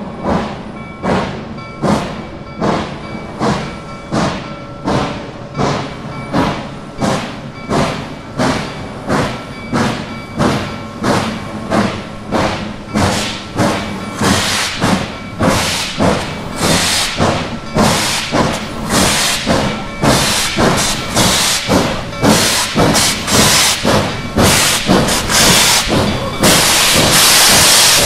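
Double-headed steam locomotives, led by Reading T1 4-8-4 No. 2102, working hard as they pull out: a steady beat of exhaust chuffs, about two a second, growing louder as they draw near. Near the end a loud steady hiss of steam joins the beat as the engines pass close.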